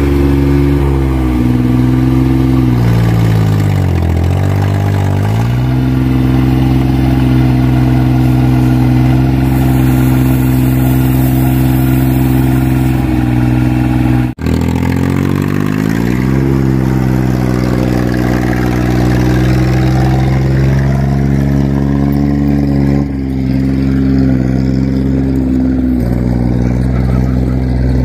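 Yanmar tracked dumper's diesel engine running loud with its exhaust muffler missing. The engine note sags and picks back up about four seconds in, and again after a brief break midway.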